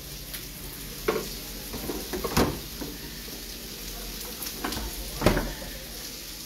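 Liver and onions frying in a pan, a steady sizzle, with several short knocks and clatters from things being handled in a refrigerator; the loudest knock comes about five seconds in.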